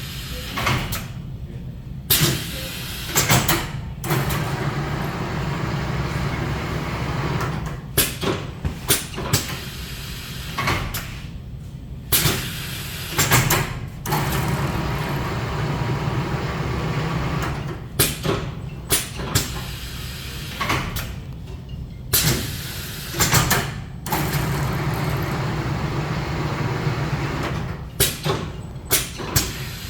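Automatic gauze bandage winding machine running: a steady motor hum with clusters of short, sharp mechanical clacks that repeat about every ten seconds, as the machine goes through its winding cycles.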